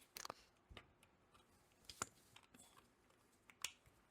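Faint, scattered clicks and taps of small plastic parts being handled: a quick cluster of clicks near the start, then single clicks about two seconds in and near the end.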